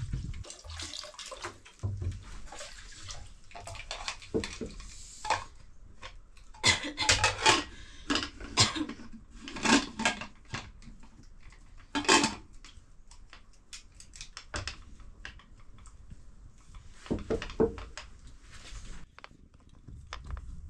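Water splashing and metal pots and dishes knocking together in short clusters of clatters while kitchen work goes on, the loudest bunch in the middle and another near the end.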